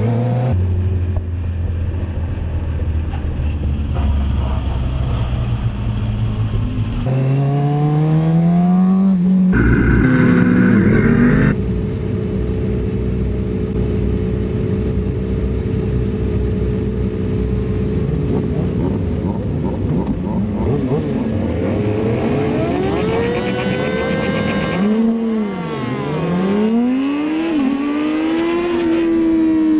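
Kawasaki ZX-6R 636 inline-four engine heard from the bike's onboard camera. It runs at a steady held note, then revs and accelerates hard off the line, its pitch climbing and dropping at each upshift.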